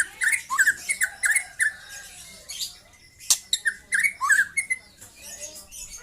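Young white-rumped shama (murai batu) singing: a quick, varied string of short chirps, sharp clicks and brief upward-sweeping whistles, thinning out briefly about halfway through.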